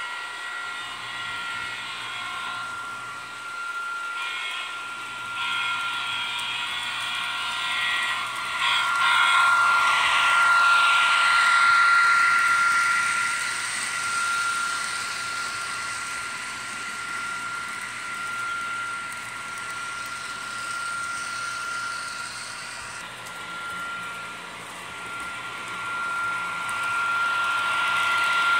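HO scale model freight train running on its track: a steady high motor whine over the rolling rattle of wheels on the rails. It grows louder about nine seconds in as the cars pass close by, and again near the end as the locomotive comes round.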